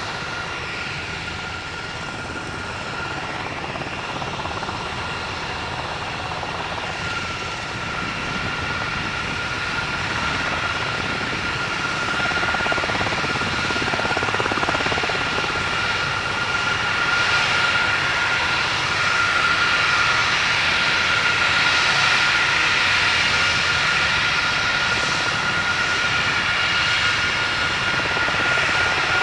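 Jet engines of a line of KC-135R Stratotankers taxiing, the CFM56 (F108) turbofans giving a steady high-pitched whine over a broad rumble. The sound grows gradually louder as the aircraft come on.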